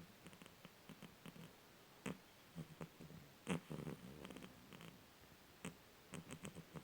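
Cat snoring faintly in short, uneven bursts, some breaking into quick flutters.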